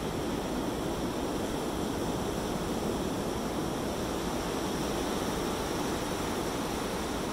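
Ocean surf breaking and washing up on a sandy beach: a steady rush of water.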